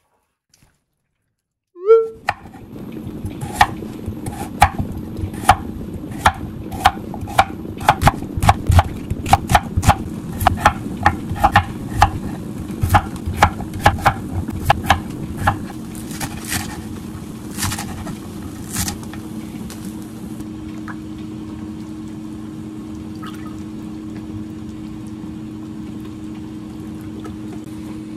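Chef's knife chopping potatoes, carrots and onion on a wooden cutting board: sharp chops, up to about two a second, that stop about two-thirds of the way through. A steady low hum runs under them and carries on alone after the chopping stops.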